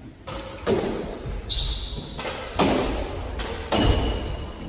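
A squash doubles rally: the ball cracking off racquets and the court walls in a quick series of sharp hits, ringing in the enclosed court, with high squeaks of court shoes on the hardwood floor between shots.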